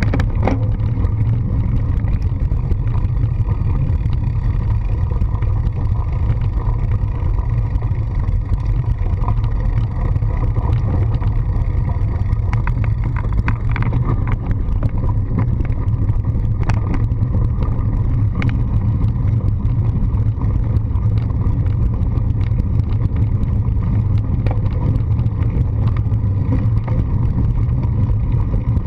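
Steady low rumble of a handlebar-mounted GoPro riding over a gravel and dirt path: tyre and handlebar vibration plus wind on the camera, with scattered small clicks and rattles from the bumps.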